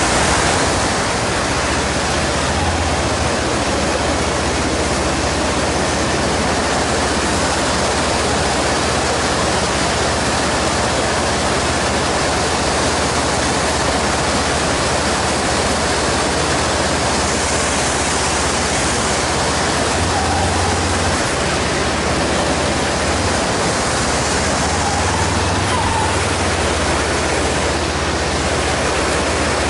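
Mountain river rushing over rocky rapids, a steady, loud, even roar of white water.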